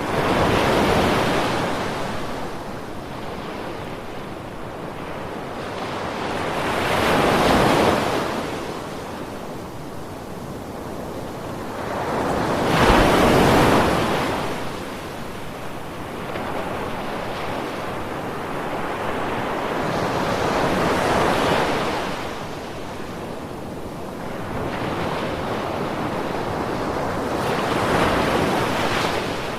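Sea waves breaking: five surges that swell and fade about every six to seven seconds, with a steady wash of surf between them.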